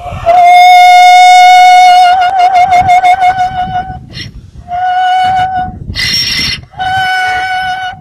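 A donkey braying in a long, high, held note that starts to waver near its end, then two shorter held notes with a noisy, gasping intake of breath between them. The bray is drawn out and tuneful enough to sound operatic.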